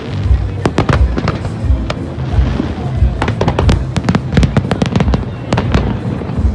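Fireworks going off in quick succession, a dense run of sharp bangs and crackles, many a second, over music with a low steady bass.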